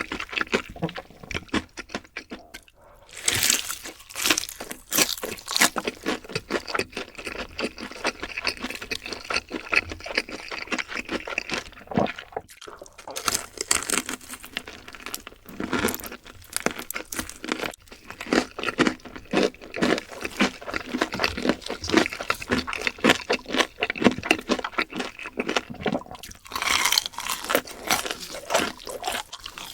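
Close-up eating sounds: crunching and chewing on crispy Korean fried chicken, with many quick irregular crackles from bites into the crust.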